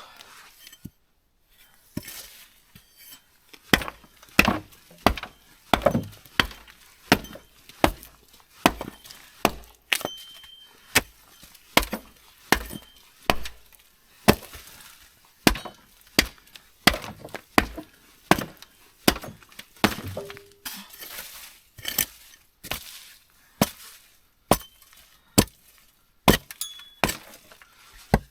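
Footsteps of a person walking at a steady pace, each step a sharp crunch or crack, about one and a half steps a second.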